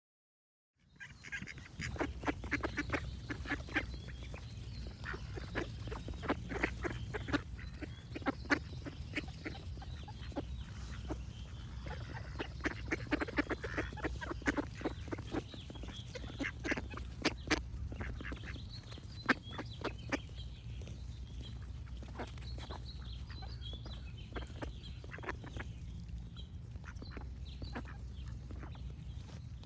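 Ducks quacking in quick runs of short, sharp calls over a steady low rumble, with fainter bird chirps in the background. The calls start about a second in and thin out in the second half.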